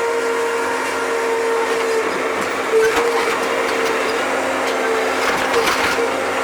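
Bobcat machine's engine and hydraulics running steadily, with a constant whine over the engine noise.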